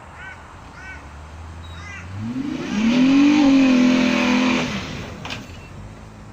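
Holden Commodore's engine idling, then revved up hard about two seconds in and held high for about two and a half seconds under a loud rushing hiss, before dropping back to idle near the five-second mark.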